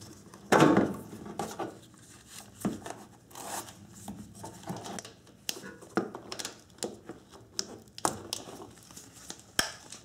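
Plastic fog light assembly from a '97 Nissan Maxima being handled with nitrile-gloved hands: irregular clicks, rustles and small knocks as it is lifted out and its bulb socket and connector are worked, with the loudest knock about half a second in.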